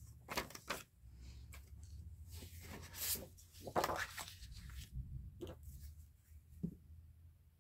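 Paper rustling and sliding as craft papers are handled, with a few soft taps on the work surface.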